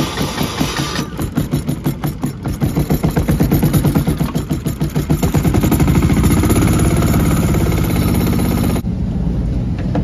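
Yanmar air-cooled single-cylinder diesel engine on a pressure washer being pull-started: it fires in separate thumps that quicken until it runs steadily. The sound cuts off abruptly near the end.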